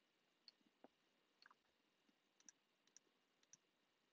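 Near silence with about ten faint, scattered clicks from a computer mouse and keyboard.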